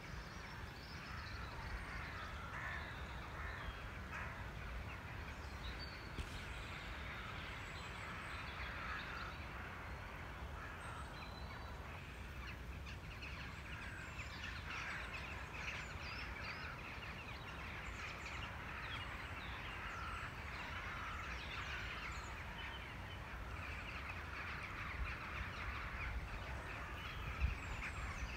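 A large flock of corvids cawing continuously, many birds calling over one another as they fly in to roost at dusk.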